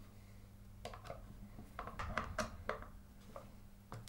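A No. 1 Phillips screwdriver fully tightening small screws into a metal pedal plate: faint, scattered clicks and scrapes of the driver and screws against metal, over a low steady hum.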